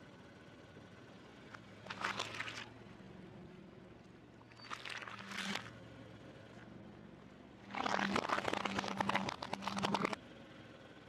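Car tyre rolling over plates of fruit, crushing them with wet crunching and crackling in three bursts, the longest and loudest near the end. A low steady hum from the car lies underneath.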